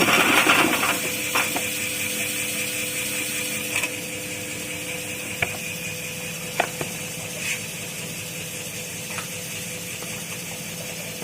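Ginger peeling and washing machine running with a steady hum, with a few sharp knocks scattered through it.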